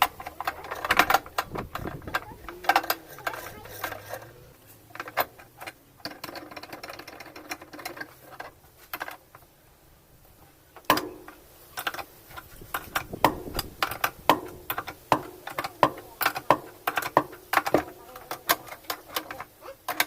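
Irregular clicks and knocks of hand tools on metal and plastic parts as a washing machine is taken apart. The knocks come faster, about two or three a second, in the second half.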